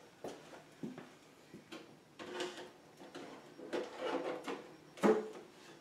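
A plastic RC body shell being set down onto a Traxxas TRX4 crawler chassis and pushed into place: a series of clicks, knocks and clatters, the loudest knock near the end.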